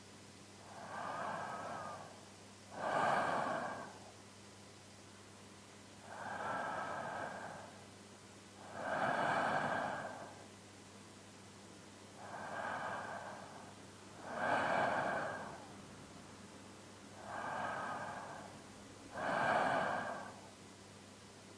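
A man's slow, deep sleep breathing, close to the microphone. There are four breath cycles, each a softer breath followed by a louder one, at a steady pace of about one cycle every five and a half seconds.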